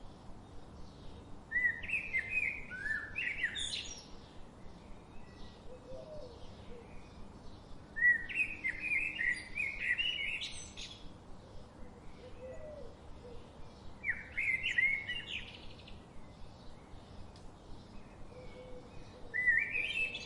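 A songbird singing the same kind of warbled phrase over and over, about one every six seconds, each lasting two to three seconds and climbing to high notes at its end. Fainter chirps of other birds come between the phrases.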